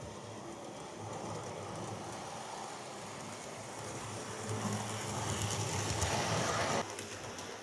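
Model diesel train running along the layout's track, its motor and wheels making a steady rumbling whirr that grows louder as it approaches, with a few clicks as it passes close by. The sound drops off suddenly just before the end.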